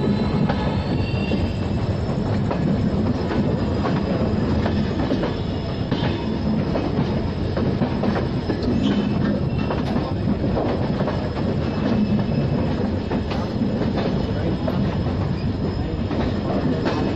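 Passenger train running over jointed track and points: a steady rumble of coach wheels with frequent clicks from rail joints. A thin high wheel squeal rises about a second in and then holds.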